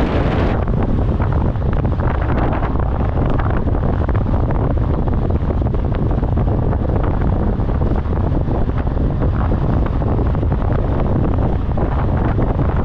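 Loud, steady wind noise buffeting the microphone while riding, a deep continuous rush with no breaks.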